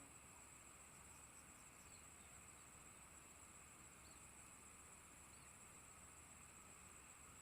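Near silence with a faint, steady, high-pitched insect drone, typical of crickets, and a few faint short chirps.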